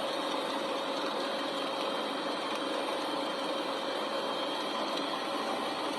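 A vehicle engine running steadily, with a constant hum of noise and faint steady tones.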